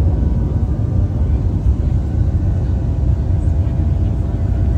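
Steady cabin roar of a Boeing 737-700 in its climb after takeoff: a deep rumble of its CFM56-7B engines and airflow, with a few faint steady hums above it.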